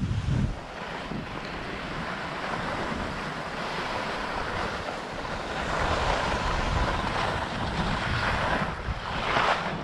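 Skis sliding and scraping over snow in a downhill run, with wind rushing over the microphone. The snow hiss grows louder in the second half and peaks near the end.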